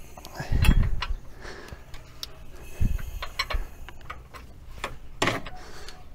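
A 1.9 AHU TDI diesel engine being turned over by hand with a wrench on the crank: irregular clicks and knocks of the tool and engine parts, with a few dull thumps, the loudest about half a second in and around five seconds.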